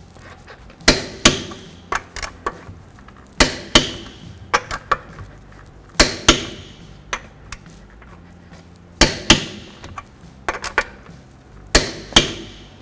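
Click-type torque wrench clicking as each wheel lug nut reaches its set torque of 140 foot-pounds: five sharp double clicks, one pair every two and a half to three seconds. Lighter clicks come between them.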